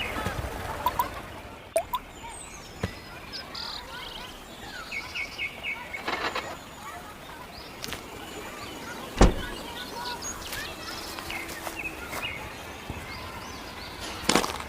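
Birds chirping over outdoor background noise, with scattered small clicks and knocks and one sharp, loud knock about nine seconds in.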